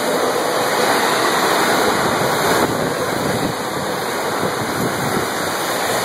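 Amtrak Amfleet passenger coaches rushing past close by at speed: a loud, steady roar of wheels on rail and moving air. It eases a little in the second half as the end of the train nears.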